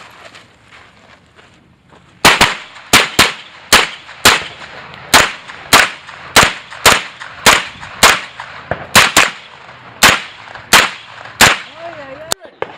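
Pistol fired in a fast string of about twenty shots during a practical pistol stage, roughly two shots a second, starting about two seconds in after a brief lull.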